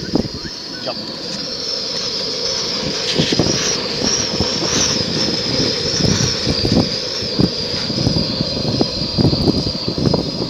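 Camping stove burner running under a cooking pot with a steady rushing hiss that grows louder over the first few seconds, a thin high whine wavering on top, and irregular crackles and buffeting throughout.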